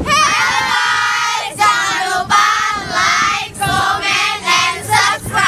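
A group of teenage girls singing together in loud, high voices.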